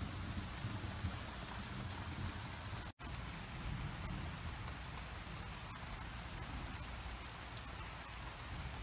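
Steady rain pouring down, an even hiss broken by a momentary dropout about three seconds in.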